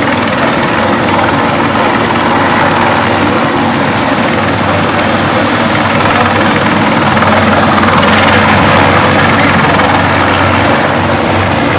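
A loud, steady mechanical drone, like a large engine running, holding evenly with no break.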